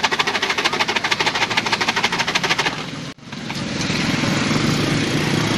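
Rapid, even rattling of a hard plastic container being shaken, about ten knocks a second, stopping about three seconds in. It is followed by a motorcycle engine running steadily on the street.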